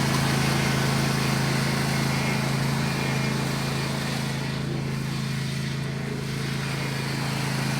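Lawn mower's small engine running steadily during a race lap, its hum dipping a little midway and growing louder again near the end.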